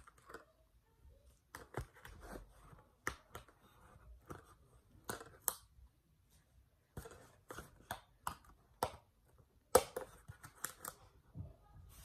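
Cardboard gift box and packaging being handled: irregular rustles, scrapes and sharp snaps as a plush toy is worked free of its fastenings, with a brief lull about halfway through.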